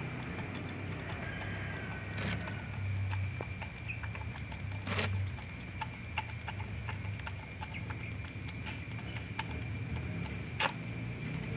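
Baby monkey sucking on a milk bottle's teat: a scattering of small wet clicks and smacks, with a few louder ones, over a steady high-pitched whine in the background.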